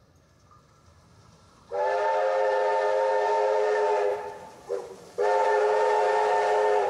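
Steam locomotive whistle sounding a chord of several steady tones. It gives one long blast of about two and a half seconds, then a very short toot, then a second long blast.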